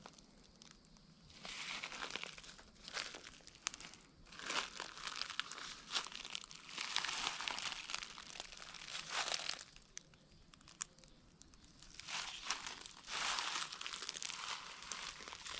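Footsteps crunching through dry dead leaves and ground cover, in irregular runs of steps with short pauses between.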